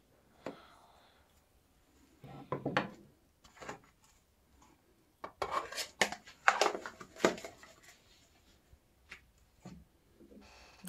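Clinks, knocks and rattles of a small food bowl and plastic tubs of grain feed being handled and set down, with a plastic lid fitted onto a tub. Busiest between about two and seven and a half seconds in.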